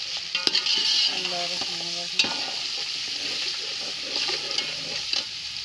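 Chicken wings sizzling in hot ghee in an aluminium pot while a metal spatula stirs them, scraping and knocking against the pot a few times; the masala is being fried (bhuna) before water goes in.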